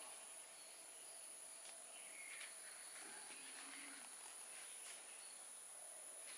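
Quiet background: a steady high insect drone, likely crickets, with a couple of faint chirps about two seconds in and a few light ticks.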